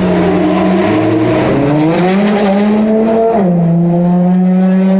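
Racing car engine running loud, its pitch rising for a couple of seconds, then dropping sharply about three and a half seconds in and holding steady.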